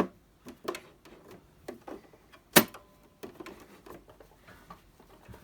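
Sewing machine at a standstill while a snag is dealt with: a scattering of sharp clicks and knocks from handling the machine and the work, the loudest about two and a half seconds in.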